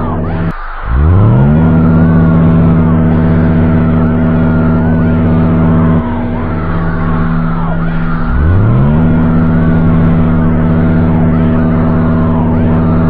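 Mock emergency-alert alarm: a loud, low buzzing tone that cuts out briefly about half a second in, swoops up to pitch and holds, shifts about six seconds in and swoops up again about eight seconds in, with wavering higher tones over it.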